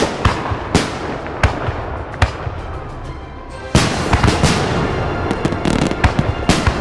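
Fireworks and firecrackers going off across a neighbourhood: a few separate sharp bangs in the first couple of seconds, then, a little past halfway, a dense run of bangs and crackling.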